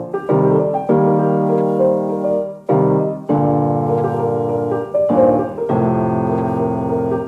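Background piano music: full sustained chords, with a new chord struck every second or two.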